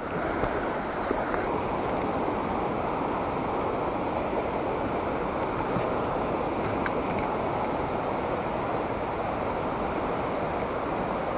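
Steady rush of a shallow, stony mountain river flowing over rocks, with one faint click about seven seconds in.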